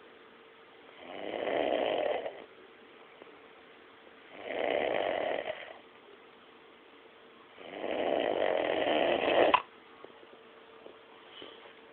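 A sleeping person snoring: three long snores about three seconds apart, the last one the longest, cutting off suddenly.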